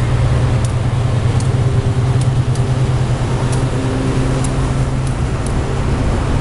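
GE U23CA diesel-electric locomotives passing slowly at close range, their V12 diesel engines making a loud, steady low drone. A few short, sharp clicks sound over it.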